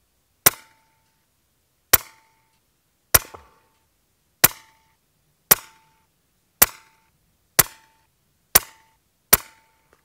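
Daystate Red Wolf .22 PCP air rifle firing slugs: nine sharp shots about a second apart, each followed by a brief ringing tone.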